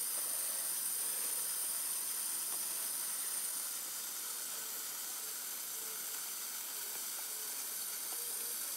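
A steady high hiss, a little quieter after about four seconds.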